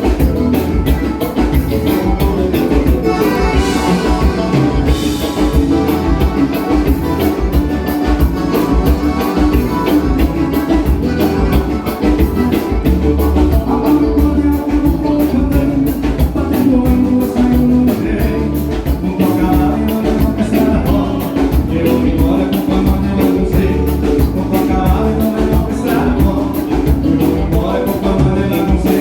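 A live gaúcho dance band playing a vanera, with a steady dance beat on the drums.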